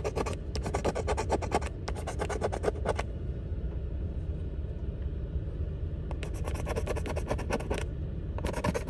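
A coin scraping the silver coating off a lottery scratch-off ticket in fast strokes. Two runs of scraping come in the first three seconds, then a pause, then more scraping from about six seconds in, over a steady low rumble.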